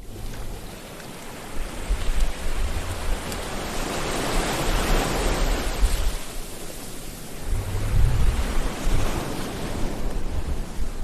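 Sea waves breaking and washing ashore: a continuous surf hiss with low rumble, swelling as a wave comes in about halfway through and again near the end.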